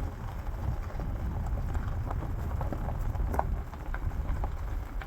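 Wind buffeting the microphone in a steady low rumble, with scattered light crackles and ticks on top.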